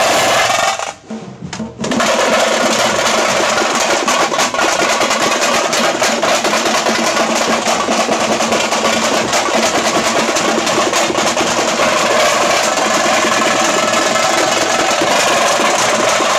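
Tamte frame drums beaten in a fast, dense, continuous rolling rhythm. The drumming drops out briefly about a second in, then resumes.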